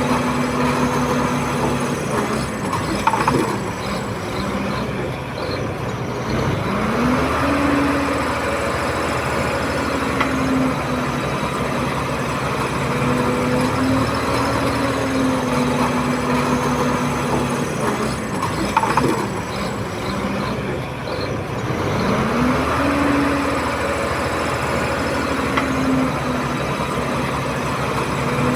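Bulldozer's diesel engine working, its pitch dropping as it takes load and climbing back again several times, with a short clank twice.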